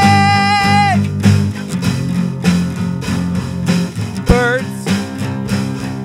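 Guitar-led music with a steady bass line; a long held high note ends about a second in, and a short sliding note sounds near the end.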